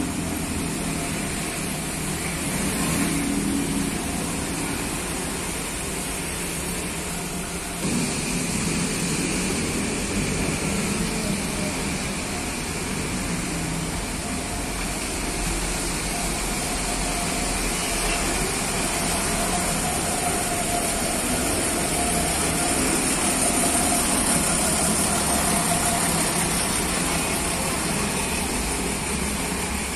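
Coach bus diesel engine running as the bus moves slowly across the wet lot, a steady engine sound that gets louder about 8 seconds in.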